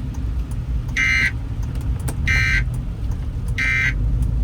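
Emergency Alert System end-of-message signal: three short, identical buzzing bursts of digital data tones, about a second and a half apart, marking the end of the tornado warning broadcast. A steady low rumble runs beneath them.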